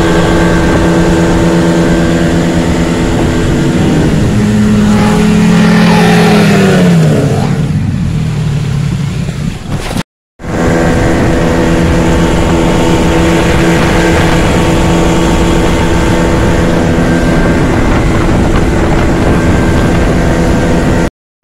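Outboard motor of a small boat running at speed, with water rushing past the hull. About four seconds in the engine note rises, then falls away and quietens; after a short break near the middle it runs steady again.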